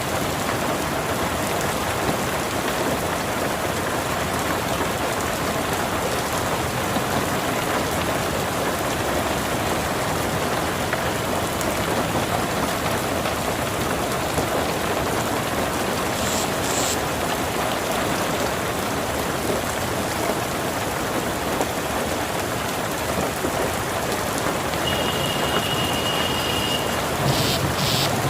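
Steady rain falling, an even hiss that keeps up without letting up.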